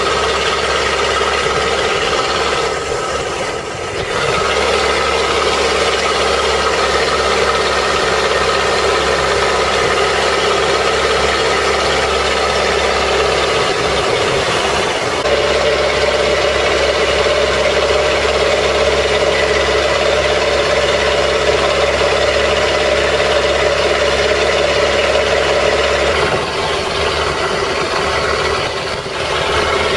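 Boat engine of a long-tail canal boat running steadily under way, its note shifting a few times.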